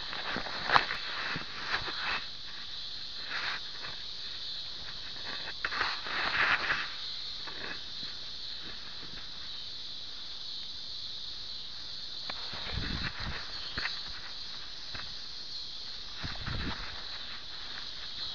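Grass and clover rustling and scuffing against a dog's chest-mounted mini camera as a Rhodesian Ridgeback moves and noses through the grass, over a steady high hiss. A few low thumps come in the later part.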